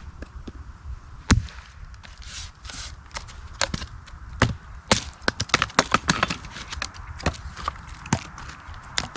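Wood being chopped and broken up by hand: irregular sharp knocks and cracks, with one loud strike about a second in and a quick run of cracks around five to six seconds in.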